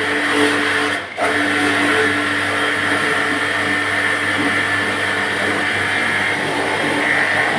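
A bike washing machine running steadily: a motor hum with a constant hiss over it, briefly dropping out about a second in.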